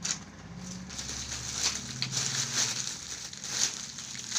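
Clear plastic packaging around a folded suit crinkling and rustling as it is handled, with sharper crackles about once a second.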